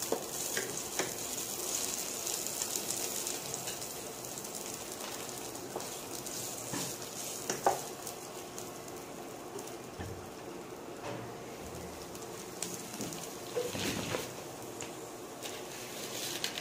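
Sliced onions sizzling as they sauté in hot oil in a non-stick kadai, stirred with a wooden spatula that knocks against the pan a few times. The sizzle is stronger in the first few seconds, then settles lower.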